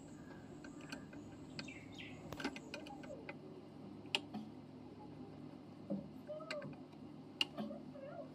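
Faint, scattered sharp clicks of a screwdriver working screws out of a metal inverter casing, over a low steady background with a few short, faint chirps.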